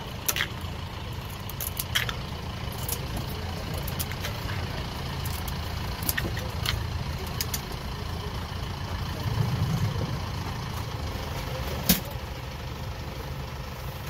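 A vehicle engine idling with a steady low hum that swells slightly near the middle. Over it come a few light, sharp clicks of metal tongs against a clay mortar as raw blue crab and shrimp are placed in, the sharpest near the end.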